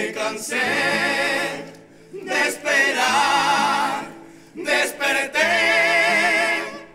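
Carnival comparsa's male chorus singing three long, held phrases in harmony with vibrato, each about two seconds with short breaks between, over low sustained guitar chords.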